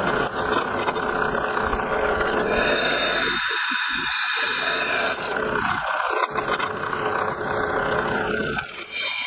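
Benchtop drill press motor running while its bit drills through a thick steel plate, a steady mechanical whir with a thin high squeal of the bit in the metal partway through.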